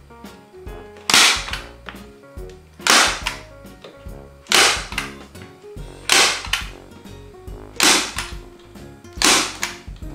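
Hand staple gun firing staples through a webbing belt into wooden slats: six sharp snaps, about one every second and a half.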